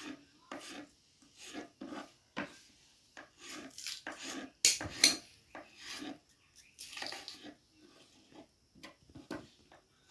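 Knife cutting raw peeled potato into strips on a wooden chopping board: a string of short, irregular knocks of the blade on the board with slicing scrapes between them, the two loudest strokes about halfway through.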